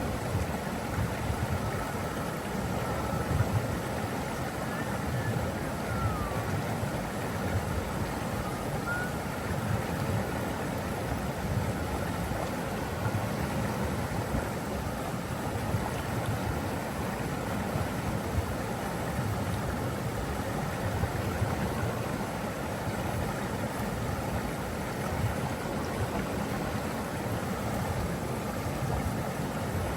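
Rushing water running steadily, a dense, deep and unbroken rush.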